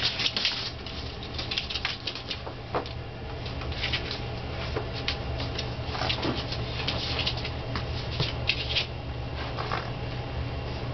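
Boston terrier puppy's paws pattering and scrabbling in quick, irregular scratches on a paper-covered floor and then in its fabric dog bed, over a steady low hum.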